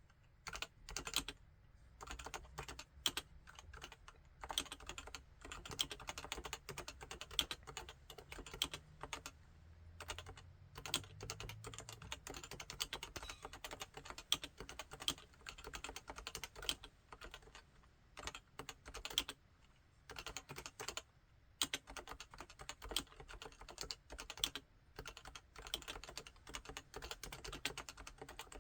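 Typing on a Topre Realforce 87UKD55 tenkeyless keyboard with electrostatic capacitive (Topre) switches: rapid runs of keystrokes broken by short pauses, with a louder single strike now and then.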